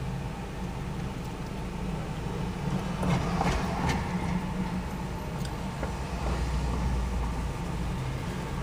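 Steady low rumble of a car's engine and surrounding traffic, heard from inside a car, with a louder swell of noise about three seconds in.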